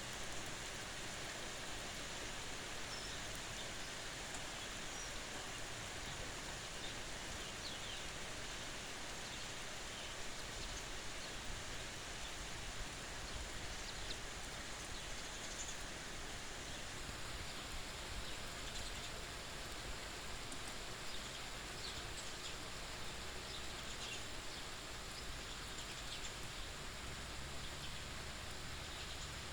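Steady rain falling, an even continuous hiss, with a few faint short bird chirps now and then.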